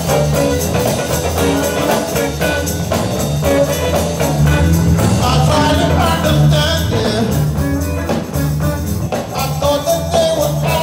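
Live band playing an upbeat groove: drum kit, a strong bass line, electric guitar and keyboard, with a percussionist on tambourine and maraca.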